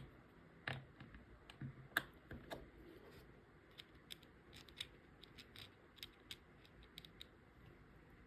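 Faint, scattered small clicks and light scraping from a Zippo lighter's metal insert being handled and pressed back together, a few sharper clicks in the first few seconds.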